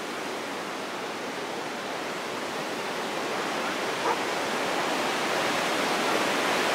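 River in flood, swollen by heavy rain, rushing through rapids: a steady churning rush of water that slowly grows louder.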